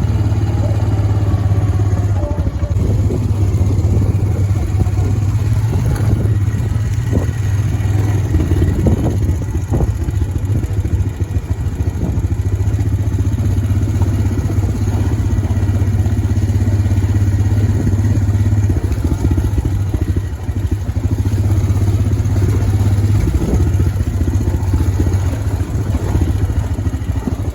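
Honda FourTrax quad's engine running steadily while the quad rides along a road.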